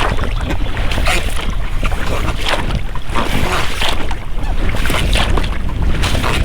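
Oars splashing in the water and rubber rowlocks working as an inflatable boat is rowed, in irregular strokes, with wind rumbling on the microphone.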